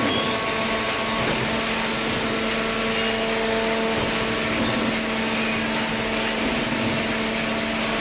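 Automatic horizontal hydraulic carton baler running: a steady machine hum with several held tones over a constant rushing noise.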